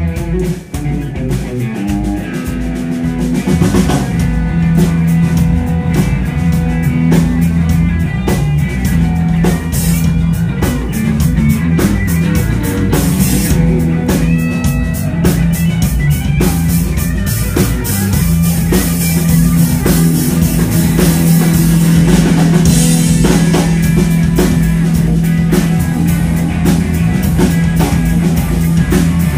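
Rock band playing live: two electric guitars over a bass guitar and a drum kit, with the bass holding a low note under the drums.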